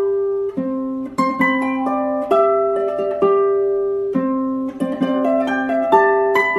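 Background music: a light melody of plucked string notes, playing a repeating phrase.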